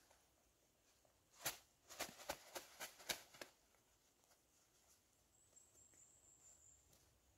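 Brief crackling and clicking from camping gear being handled: about eight sharp rustles in two seconds, starting about a second and a half in.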